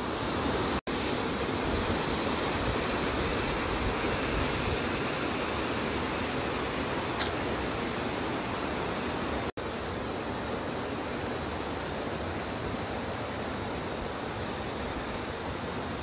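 Steady rushing of a valley stream, an even hiss with no changes except two instants where the sound drops out completely.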